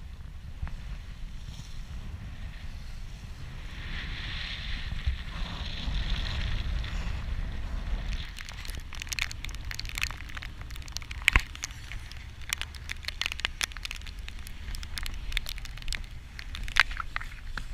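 Gale-force wind buffeting the microphone with a steady low rumble, rising to a louder hiss of wind and spray about four seconds in. From about eight seconds on, many sharp, irregular clicks and knocks sound over the wind.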